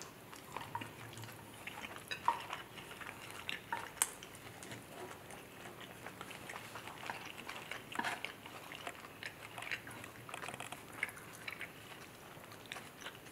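Quiet eating sounds: chewing noodles, with scattered light clicks of chopsticks against the tray. A few sharper taps stand out, the loudest about four seconds in and another near eight seconds.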